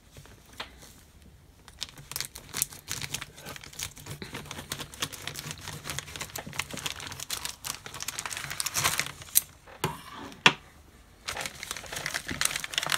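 Clear plastic packaging of a model-kit part crinkling and rustling as it is handled and opened, with a couple of sharp clicks about two-thirds of the way in.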